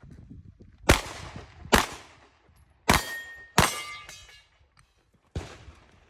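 Five 9mm shots from a Glock 17 pistol, fired at uneven intervals. The third and fourth are followed by the ring of struck steel targets.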